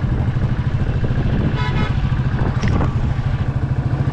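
Royal Enfield Classic 350 single-cylinder engine thumping along at a steady pace. A vehicle horn sounds briefly about one and a half seconds in.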